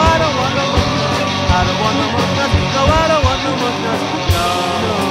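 Punk-rock band playing an instrumental passage without vocals: a steady drum-kit beat under electric guitar, with short pitched phrases that rise and fall twice.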